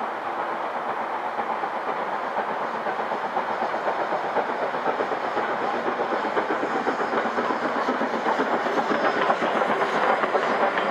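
LMS Hughes 'Crab' 2-6-0 steam locomotive 13065 working a passenger train past, growing steadily louder as it approaches. Near the end its tender and coaches roll by, wheels clicking over the rail joints.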